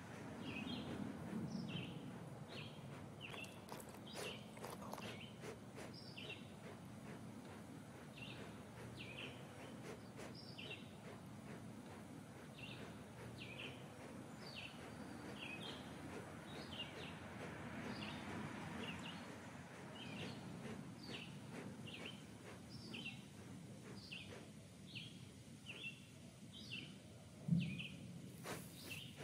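A small bird chirping, one short high chirp about once a second, over a faint steady outdoor background. A single sudden thump near the end.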